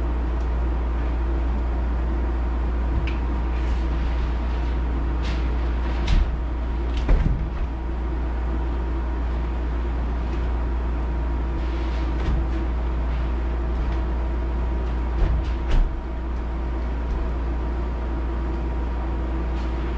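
Scattered knocks and clicks of an entry door being worked into its opening, over a steady low mechanical hum. The loudest knocks come about six and seven seconds in, and as a quick pair near sixteen seconds.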